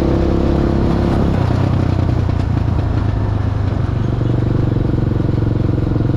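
Engine of a homemade vehicle running as it drives. Its pitch drops about a second in, then holds at a steady lower pitch.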